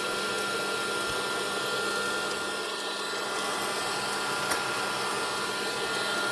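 Electric popcorn popper running with a steady whir and a thin high tone while it heats up, before the kernels start popping. There is a single faint tick about four and a half seconds in.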